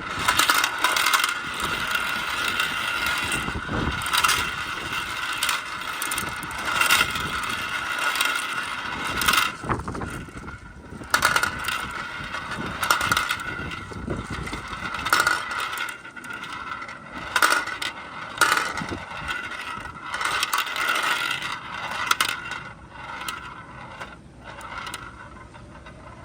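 Many marbles rolling and clattering along a marble run track, with frequent sharp clicks as they knock against each other and the track.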